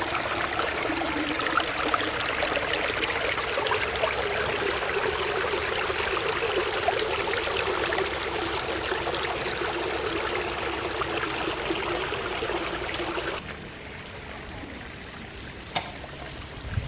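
Shallow water running over rocks in a narrow stone-lined channel, a steady rushing babble. It cuts off abruptly about thirteen seconds in, leaving quieter outdoor background with a single click.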